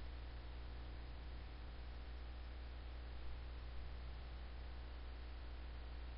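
Steady low electrical hum under an even hiss: the background noise of the recording, with no other sound standing out.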